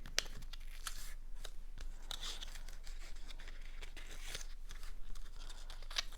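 Cardstock being folded along its score lines and handled: scattered crisp paper clicks and short rustles.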